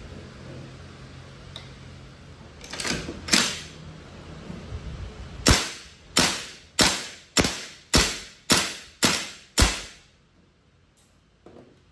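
WE SVD gas blowback airsoft rifle firing eight shots in steady succession, about one every 0.6 s, each a sharp crack that dies away quickly. Two lighter clacks come before the shots.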